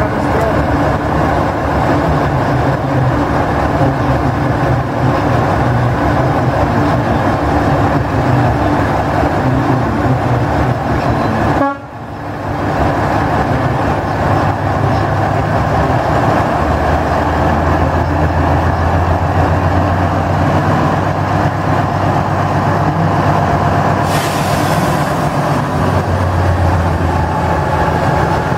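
T 334.0 diesel shunting locomotive's engine running steadily as the locomotive moves slowly past, with a short break about twelve seconds in. Later the engine's low hum grows stronger, and near the end a brief hiss rises over it.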